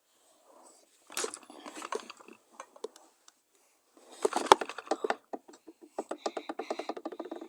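Slime being squeezed and kneaded by hand, giving wet crackling and popping clicks in two bursts, then a fast, even run of small clicks near the end.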